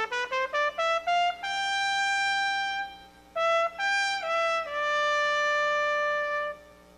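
Trumpets playing an unaccompanied melody: a quick run of short rising notes, a long held note, a brief break, then a few notes stepping down into a second long held note that stops about half a second before the end.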